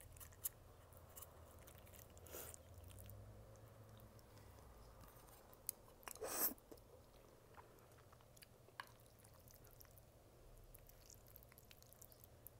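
Quiet, close-up eating sounds of saucy ribbon pasta: soft wet chewing and small mouth clicks, with one loud slurp of a noodle about six seconds in.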